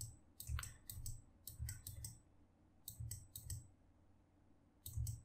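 Quiet, scattered clicks from a computer mouse and keys being worked, many coming in quick pairs, in several short bursts with pauses between.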